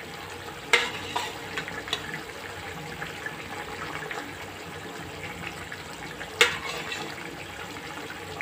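A pan of curry simmering with a steady bubbling hiss, and a spoon knocking against the pan a few times. The sharpest knocks come about a second in and again around six seconds in, as fried fish pieces are put into the curry.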